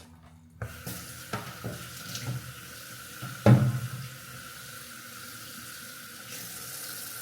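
Kitchen tap turned on about half a second in, water running steadily into the sink, with a few light knocks and one louder thump about three and a half seconds in.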